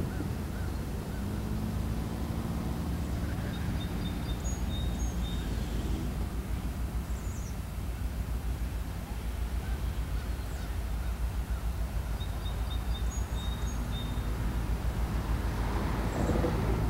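Diesel locomotive's engine rumbling steadily as it pulls a freight train slowly around a curve, growing louder near the end as the locomotive and its wheel noise come close.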